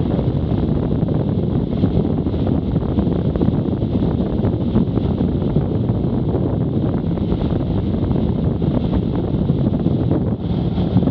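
Steady wind rush over the microphone of a camera on a moving BMW F800GS motorcycle, with the bike's parallel-twin engine and road noise running underneath.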